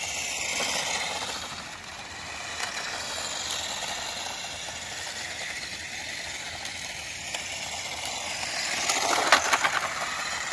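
Toy-grade RC car driving on tarmac: its electric sprint motor and gear train whining along with tyre noise, swelling and fading with throttle. A louder rattly, clicking patch about nine seconds in.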